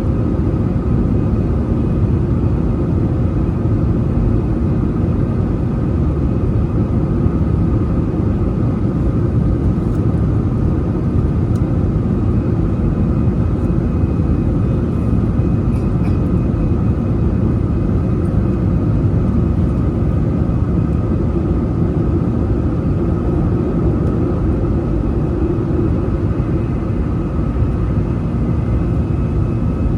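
Airbus A320-200 jet airliner heard from inside the passenger cabin: a steady, loud rumble of engines and airflow with a few faint steady hums above it.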